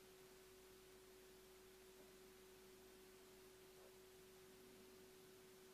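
Near silence: quiet room tone with one faint, steady low hum-like tone that holds at an even level throughout.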